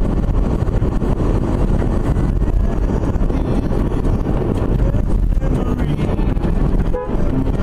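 Car driving, heard from inside the cabin through a dashcam: a steady low rumble of engine and road noise, with a brief dip and a click about seven seconds in.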